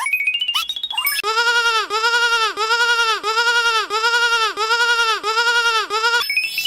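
Sheep-bleat sound effect repeated in a fast, even loop, about two or three short rising-and-falling bleats a second. It is preceded by a rising tone that climbs in steps during the first second.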